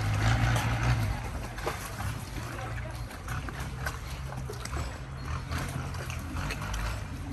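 Boat engine running with a steady low hum that dips briefly about three seconds in, over light water sounds and faint, scattered voices.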